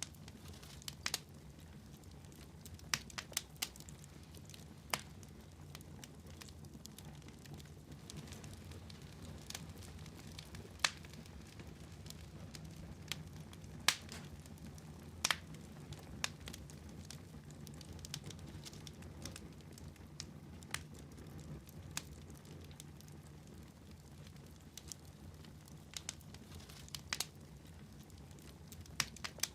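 Wood fire in a fireplace crackling: irregular sharp pops and snaps, some louder than others, over a steady low rumble of the flames.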